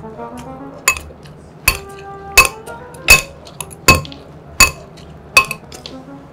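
A metal spoon clinking against a ceramic bowl during hurried, greedy eating. There are seven sharp, ringing strikes at an even pace of about one every three-quarters of a second.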